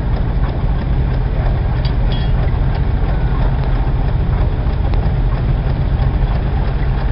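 A heavy engine running steadily with a low, even rumble that does not change, as it would when driving threshing and baling machinery.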